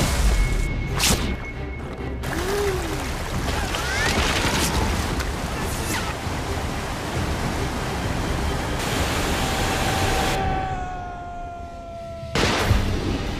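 Commercial's soundtrack: music over rushing surf and water effects, broken by several sudden hits. A long, slowly falling tone leads into a loud hit near the end.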